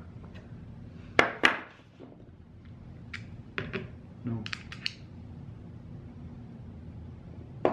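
Metal hand tools clinking and knocking as they are handled: slip-joint pliers and a screwdriver working at a quadcopter motor's propeller nut and being set down on a table. Two loud knocks about a second in, then a scatter of lighter clicks a few seconds later.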